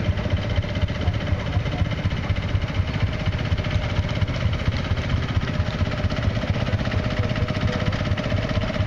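Small vintage farm tractor's engine running slowly at low revs with a steady, even beat as it drives past pulling a wagon.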